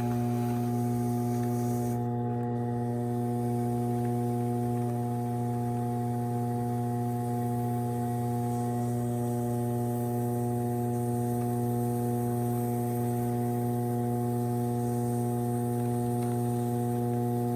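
Steady low electrical hum at mains pitch, a stack of even tones that holds unchanged throughout.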